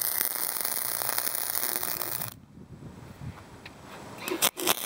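90-amp Harbor Freight flux-core wire welder arc crackling as it runs a weld on steel square tubing, stopping abruptly about two seconds in. A couple of short crackling bursts of arc follow near the end.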